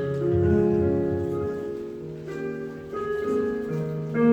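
Piano or keyboard playing slow, sustained chords, an instrumental introduction before a worship song's vocals come in. New chords are struck about two seconds in and again at the end.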